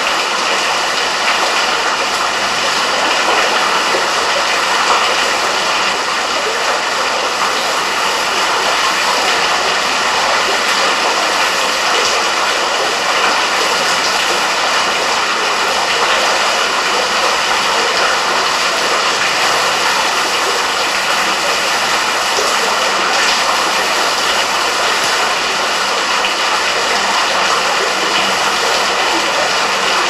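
A 40-foot waterfall inside a cave, heard from the bottom of the fall: a loud, steady rush of turbulent water that never breaks or changes.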